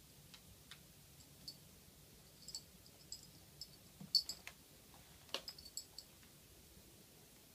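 Faint, scattered light clicks and taps of a cat's claws and paws on a laminate floor as it pounces on a moth, the loudest about four seconds in.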